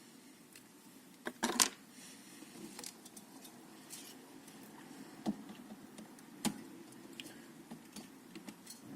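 Small hard clicks and clinks of tools and metal parts being handled on a workbench, a close cluster about one and a half seconds in the loudest, then single clicks every second or so, over a low steady hum.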